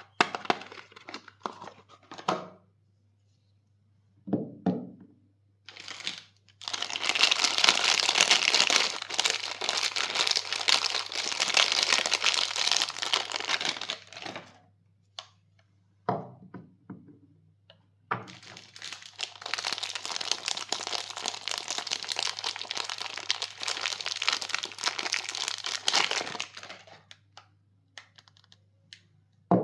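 Soap wrappers crinkling and tearing as bars of soap are unwrapped by hand: two long stretches of dense crinkling, with a few short rustles and knocks before and between them.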